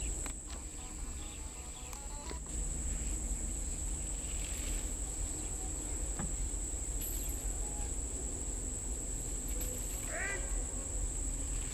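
Insects droning steadily in a single high-pitched tone throughout, with a brief arched call about ten seconds in.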